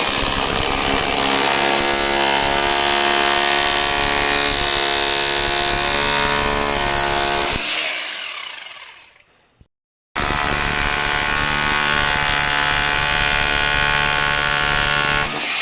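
Electric drill running at full speed with a steady whine, then spinning down as the trigger is let go. It starts again shortly after and runs steadily before slowing once more near the end.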